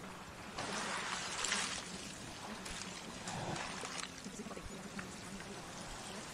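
Running water: a steady wash that swells louder about a second in and again around three seconds in.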